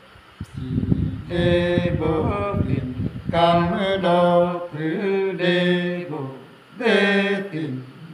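Unaccompanied man's voice singing a slow, chant-like folk song in long held notes. A low rumble of knocks runs under the first few seconds.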